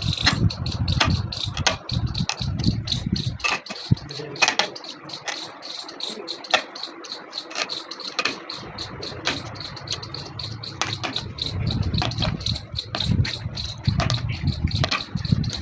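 Rapid series of sharp clicks or taps, several a second, over a low rumbling hum that drops away for a few seconds in the middle and then returns.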